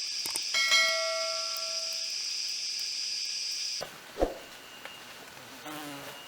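Dense, shrill buzzing of a rainforest insect chorus that cuts off abruptly about four seconds in. A short held tone sounds about a second in, and a single sharp knock comes just after the chorus stops.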